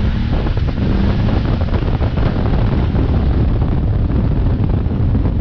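Wind buffeting the helmet-mounted microphone of a moving motorcycle, a loud steady rush, with the BMW F850GS's parallel-twin engine running underneath as the bike speeds up.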